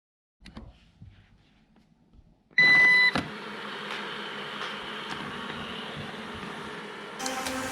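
A Eufy RoboVac 30C robot vacuum gives a short, loud electronic beep a couple of seconds in, then runs steadily with the even noise of its suction motor and brushes.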